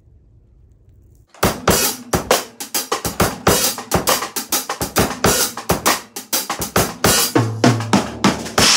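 Drum kit played with sticks: a fast run of snare, bass drum and cymbal hits that starts about a second and a half in, after a faint low hum, and ends on a cymbal crash that rings on.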